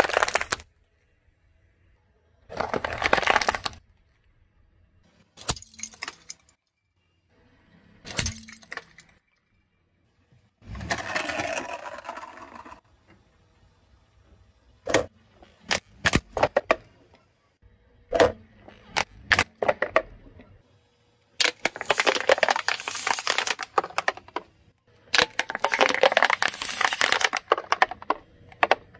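Car tyre rolling over and crushing small objects, a cat figurine, a pink plastic toy and a plastic bottle among them: about nine separate bursts of cracking, crunching and crinkling, each a second or two long, with near-silent gaps between them.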